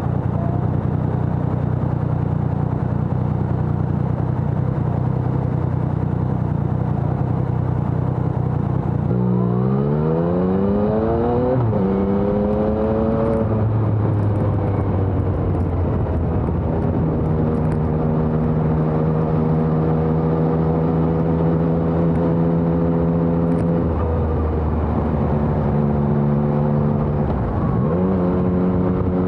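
2020 Yamaha XSR900's inline three-cylinder engine through a LeoVince Evo One full exhaust, running at a steady speed, then about nine seconds in revving up, shifting up, and pulling again before settling into a steady cruise. Near the end it revs up quickly once more and shifts.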